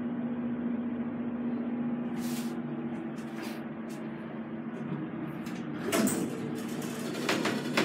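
Elevator car's steady hum, with the car's sliding doors clunking and rattling open in the second half.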